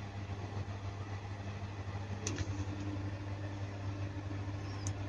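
Faint steady low hum, with a light click about two seconds in and another near the end.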